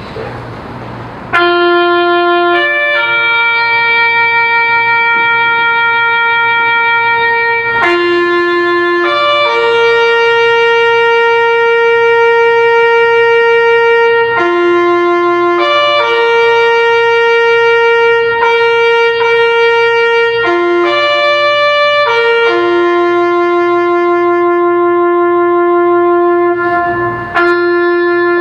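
A bugle sounding a slow funeral call for the minute of remembrance, a string of long held notes stepping between a few pitches.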